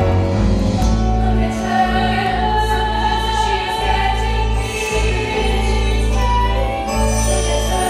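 Music with a choir singing sustained chords over a held low bass.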